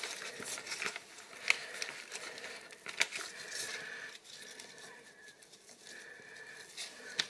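Gloved hands lifting strips of streaky bacon off a stack in a plastic tray: soft crackling handling noise with a few sharp clicks, the clearest about one and a half and three seconds in.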